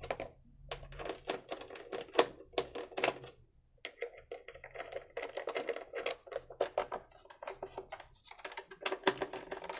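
Quick irregular clicking and ticking of a screwdriver backing out the screw of a small petrol generator's plastic air filter cover, with a short pause partway through.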